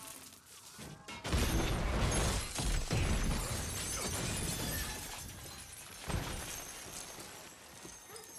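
A bomb explosion about a second in: a loud blast, then glass shattering and debris clattering down as it slowly dies away, with another hard crash about six seconds in.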